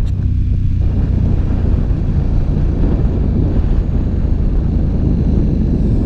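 KTM 1290 Super Duke's V-twin engine running at a steady pace while the motorcycle cruises, mixed with wind rushing over the camera's microphone.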